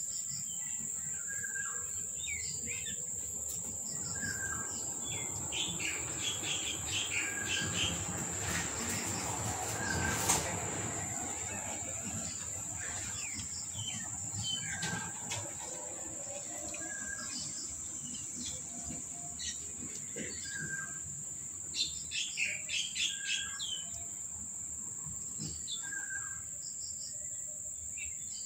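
Small birds chirping: a short note repeating every second or two, with quick runs of higher chirps now and then, over a steady high insect drone. A brief swell of noise ends in a sharp click about ten seconds in.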